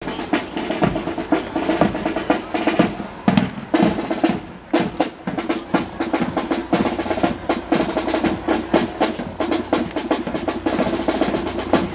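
Marching band playing on the march: rapid snare drum strokes and rolls with bass drum beats, over sustained notes from the tuba and saxophones.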